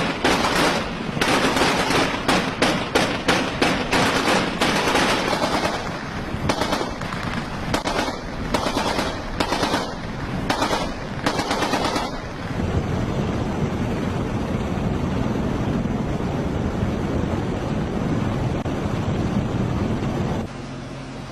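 Automatic gunfire in rapid bursts of shots for about the first twelve seconds. The firing then stops and a steady rumbling noise continues.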